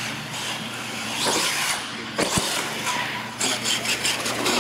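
Radio-controlled monster truck driving on a concrete floor, its motor and tyres swelling and fading with the throttle. There is a sharp knock about two and a half seconds in and a quick run of clicks near the end.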